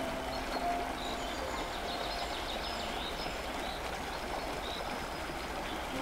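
River water rushing over shallow rapids, a steady hiss, with birds chirping. A few soft held music notes fade out in the first couple of seconds.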